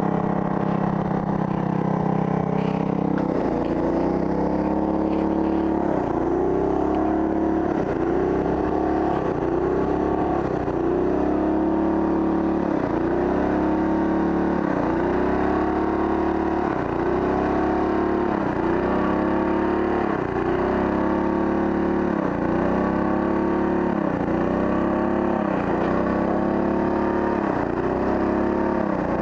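Pressure washer engine running while the wand sprays water on the wall. Its pitch holds steady for about three seconds, then dips and recovers in a regular cycle about every second and a half.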